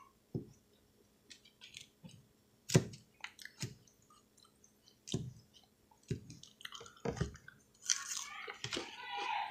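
Close-miked eating of a salad: separate crunches and wet chewing and mouth clicks, the loudest about three seconds in.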